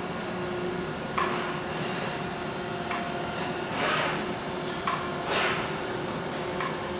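Automatic spot-welding line running: sharp clicks of the welding guns clamping, about every two seconds, with short air hisses between them, over a steady machine hum.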